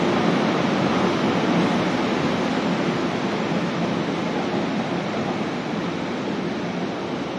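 Locomotive-hauled blue passenger coaches rolling past at low speed as the train departs, a steady rumble of wheels on rail that slowly fades as the last coach goes by.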